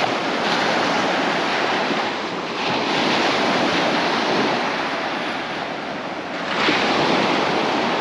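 Small waves breaking and washing up a sandy beach: a steady surf wash that swells as a wave breaks a little under three seconds in and again near the end.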